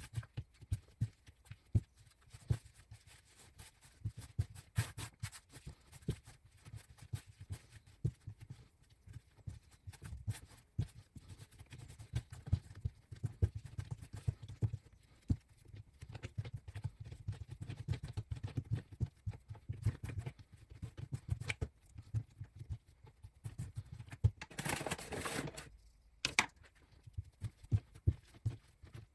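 Hands kneading bread dough on a silicone baking mat: irregular soft thumps and taps as the dough is pressed, folded and slapped down, with a brief rustle near the end.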